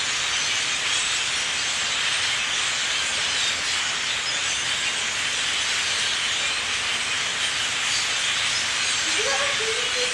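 Dense, steady din of a huge flock of birds calling all at once, a hiss-like chatter in which no single call stands out.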